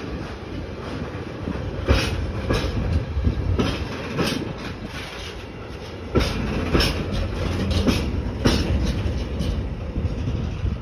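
Freight wagons rolling past: tank wagons and flat wagons carrying tank containers. A steady rumble is broken by sharp, unevenly spaced wheel clacks, several a second at times.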